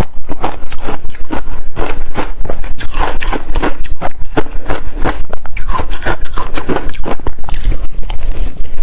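Close-miked crunching of ice being bitten and chewed, loud, with crunches following one another several times a second.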